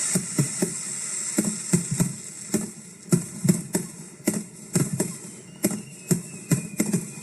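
Fireworks going off at close range: a quick, uneven string of sharp pops, about three a second, over a high hiss that fades after about three seconds.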